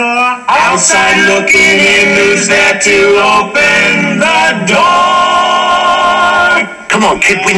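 Several men singing a song together in harmony, with long held notes and short breaks between phrases.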